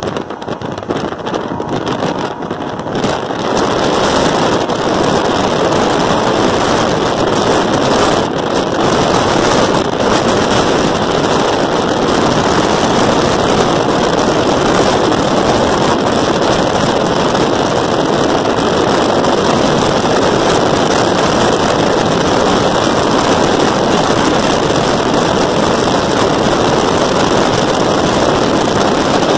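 Steady rush of wind and road noise from a car driving at speed alongside the train. It gets louder about three seconds in and then holds steady.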